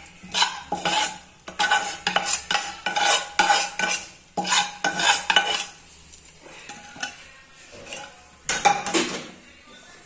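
A steel spoon scraping and clinking against a steel bowl and a stainless-steel kadhai as coarsely ground green peas are scraped into the pan, over a light sizzle from the hot pan. A quick run of scrapes lasts about five seconds, then a few more come near the end.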